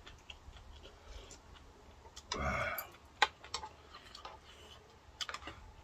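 Eating sounds over a bowl of ramen: scattered light clicks and taps of utensils and chewing. A brief louder sound comes about two and a half seconds in, followed by one sharp click.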